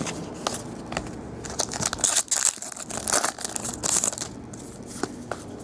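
Foil wrapper of a 2011 SP Authentic football card pack being torn open and crinkled, with cards clicking and sliding against each other. The crinkling comes in two louder stretches, about two seconds in and again from three to four seconds in.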